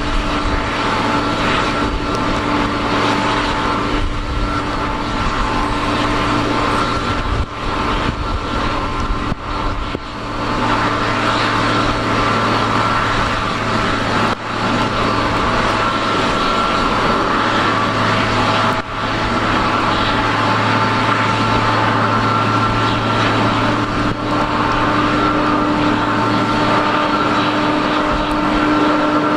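Steady turbine whine and rush from a Boeing 777-200 airliner during pushback by a tow tug, with a low hum underneath.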